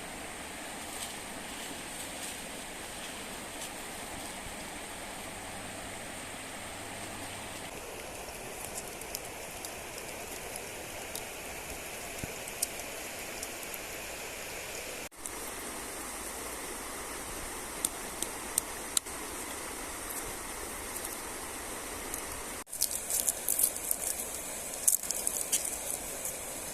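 Steady rushing of a river's flowing water, with scattered sharp crackles and ticks that become frequent and louder in the last few seconds. The flow breaks off abruptly and resumes twice, as at edit cuts.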